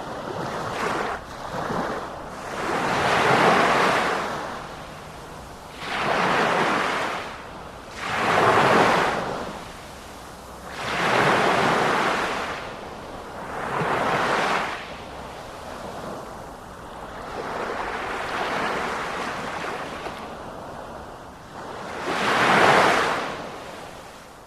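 Sea surf: waves breaking and washing in, the rushing noise swelling and falling away every few seconds.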